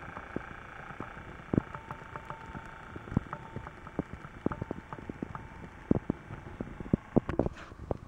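Blizzard wind blowing steadily over the microphone, with irregular sharp clicks and knocks about two or three a second, the loudest about one and a half seconds in and near the end. A faint steady tone runs through the middle.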